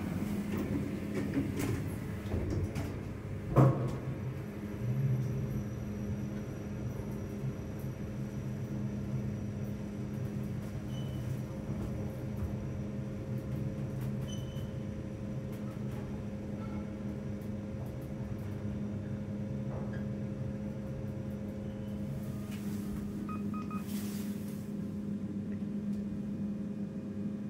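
Kone EcoDisc lift car travelling down, a steady low hum throughout. A single sharp knock comes about three and a half seconds in, and a few brief faint tones near the end.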